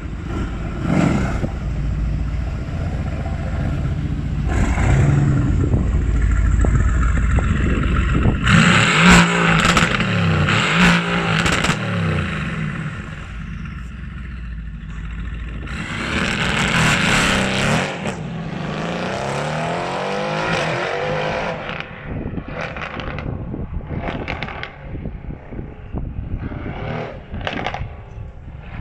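Mercedes-AMG GT R's twin-turbo V8, running catless downpipes, accelerating hard with its pitch rising and falling through the revs, then crackling and popping from the exhaust off throttle near the end. Wind buffets the microphone in the first few seconds.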